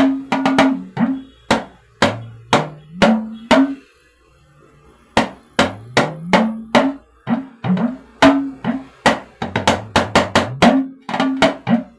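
Talking drum played in quick rhythmic phrases, each stroke a short pitched note, the pitch stepping between a few notes and sliding upward on some strokes as the tension cords are squeezed. There is a break of about a second about four seconds in.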